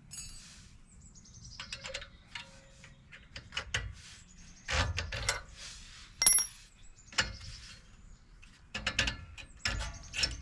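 Irregular metal clicks, clinks and knocks of hand tools and parts on a truck's front disc brake caliper as the pad retaining pins and brake pads are worked loose. Some strikes ring briefly, the loudest about six seconds in.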